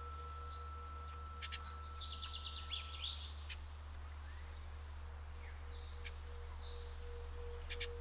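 A Tibetan singing bowl rings on in one steady tone with a slight wobble, and a higher overtone dies away about three seconds in. Birds chirp over it, with a quick trill about two seconds in and sharp chirps near the end. A steady low hum runs underneath.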